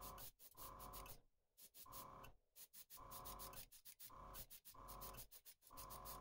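Airbrush spraying in short trigger bursts, about seven in a row, each a hiss of air with a steady whistling tone.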